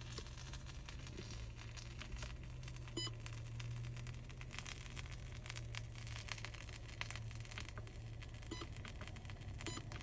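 Faint crackling sizzle of a pizza frying in a pan, over a steady low hum, with a few brief high-pitched clinks.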